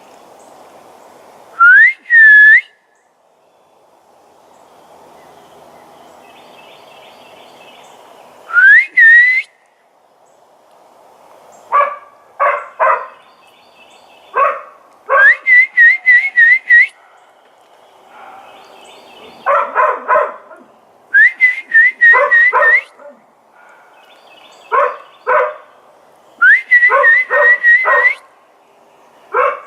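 A person whistles bird-like calls: two rising whistles, then quick warbling trills. A dog answers with short bursts of barks, two to four at a time, trading off with the whistling.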